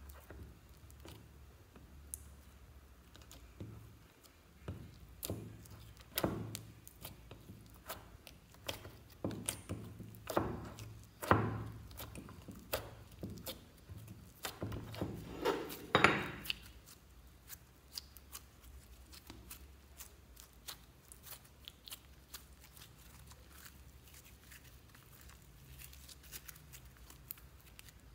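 White slime being kneaded and folded by hand in a dish to mix in food colouring, making sticky clicks and small pops as it is pressed and pulled. The pops come thick and loudest through the middle and thin out near the end.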